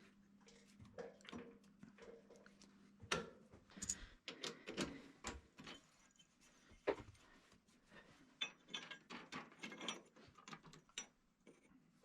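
Faint, irregular clicks and light knocks of metal parts and tools being handled, a dozen or so scattered sharp ticks with no steady machine running.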